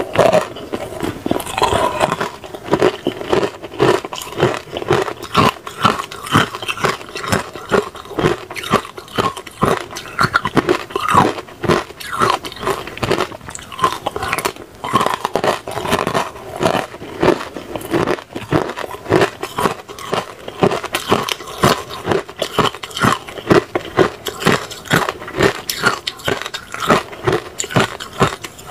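Hard ice cubes frozen with pomegranate being bitten and crunched between the teeth. A rapid, unbroken run of sharp cracks and crunches goes on several times a second.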